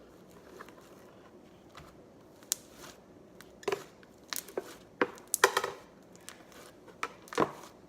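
A spoon and bowls being handled: a handful of separate sharp knocks and clinks, a few of them ringing briefly, mostly in the second half.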